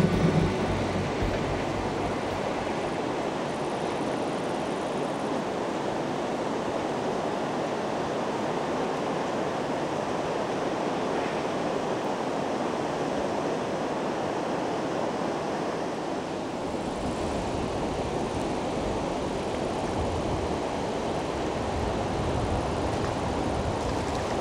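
River current flowing, a steady even rush of water noise.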